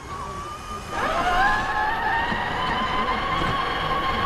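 RC rock crawler's electric motor and geartrain whining as it drives off: the whine comes in about a second in, rises in pitch, then holds steady.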